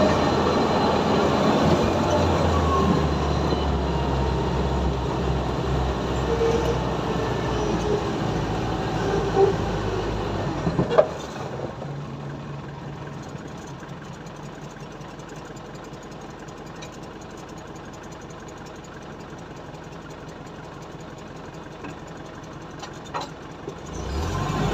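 Engine of a small fruit-bunch hauling vehicle running as it drives along a plantation dirt track. About eleven seconds in there is a sharp clack and the sound drops much quieter as the vehicle stands still. Near the end it picks up again.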